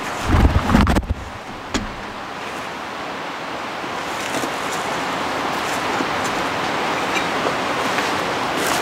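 Wind buffeting the microphone for about the first second, then a steady rushing of wind that slowly builds.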